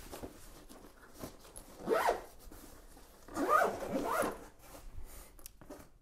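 Zipper of a Peak Design Everyday Backpack's camera compartment being pulled shut in three quick zips: one about two seconds in and two close together near the middle.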